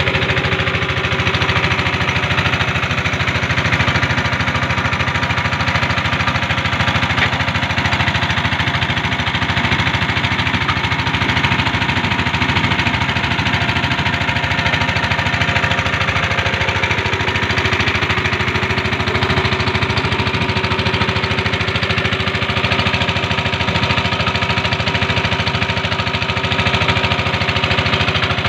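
Inboard engine of a small plastic-drum boat running steadily under way, a continuous, even engine drone with rapid firing pulses.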